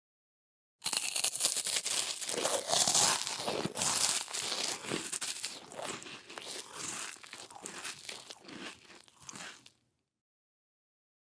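A person chewing crunchy food close to the mouth: a long run of irregular crunches, loudest at first and gradually fading as the food is chewed down, starting about a second in and stopping near the end.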